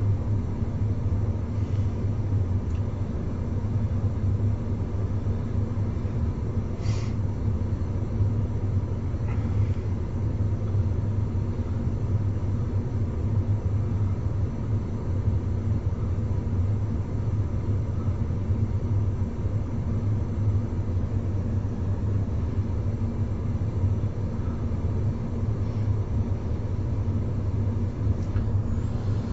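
Steady low hum and rumble of a battery-electric Cat 320 Z-Line excavator heard from inside its cab as it works, from the electric drive and hydraulic system rather than a diesel engine. It is surprisingly noisy for an electric machine, with a faint click about seven seconds in.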